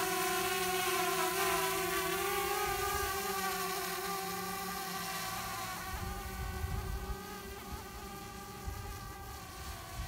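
DJI Mavic Air quadcopter's propellers buzzing in flight: a steady whine of several even tones that grows gradually fainter. Low gusts of wind rumble on the microphone in the second half.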